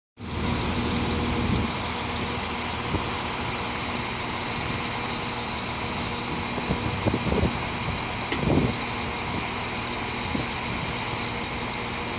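NI Railways CAF Class 4000 diesel multiple unit's underfloor diesel engines running with a steady drone. A few brief low bumps come about seven and eight and a half seconds in.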